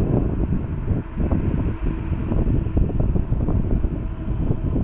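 Wind buffeting the microphone, over the steady hum of a Boeing 777-200ER's Pratt & Whitney PW4070 turbofans at idle.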